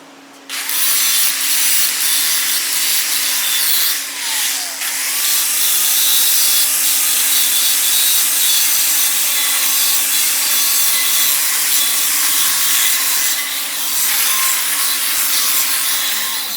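Angle grinder grinding down weld tie-ins on a solid steel bar: a loud, steady rasp of the disc on metal over the motor's hum. It starts about half a second in, dips briefly about four seconds in, then runs on until it stops near the end.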